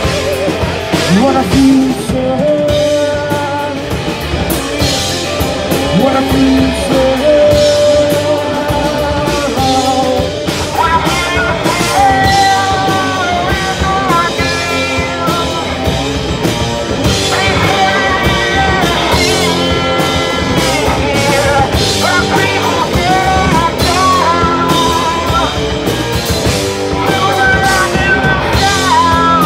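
Live rock band playing through amplifiers: electric guitars over a drum kit.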